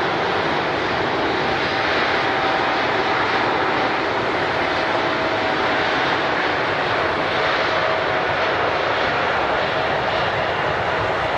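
Airliner engines running with a steady rush of noise and a faint, thin whine.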